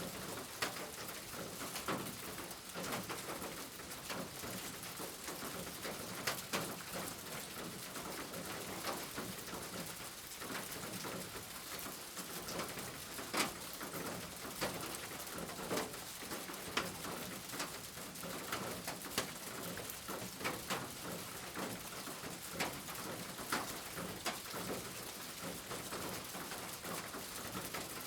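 Steady rain with many individual drops tapping close by, and a bird calling now and then.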